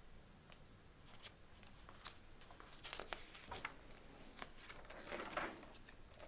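Faint rustling and light clicks of paper being handled, most likely a picture book's page being turned, busiest about halfway through.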